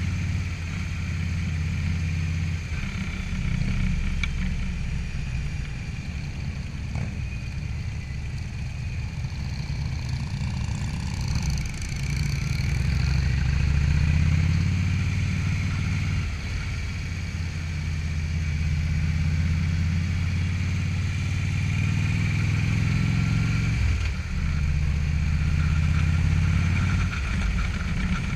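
Motorcycle engine running at low town speed, heard from the rider's seat. Its note rises and falls a few times as the bike speeds up and eases off.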